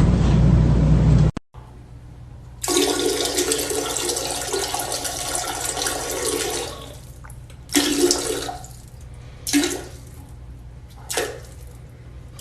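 Rushing water, like a toilet flushing: a gush lasting about four seconds, then three short gushes a second or two apart.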